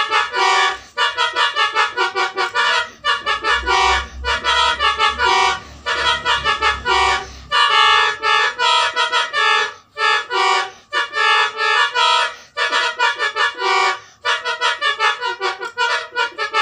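A set of twelve air-horn trumpets blaring a rapid, rhythmic melody of short, clipped notes in several pitches at once, in the Indonesian 'telolet' style. The phrases are separated by brief gaps, and a low hum sits beneath the notes for a few seconds near the middle.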